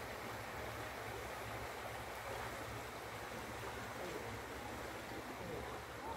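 Floodwater from an overflowing stream rushing steadily across a street in a fast, turbulent flow.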